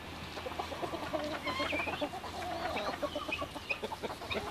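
Chickens clucking, a run of short low clucks mixed with higher, squeaky calls that rise and fall.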